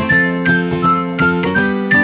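Background music: a high, whistle-like melody over sustained chords with a steady beat.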